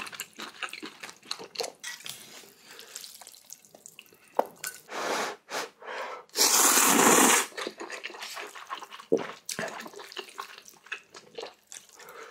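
Close-miked eating of ramen: a run of wet chewing and smacking clicks, with two slurps. The second slurp, about six seconds in, is loud and lasts about a second.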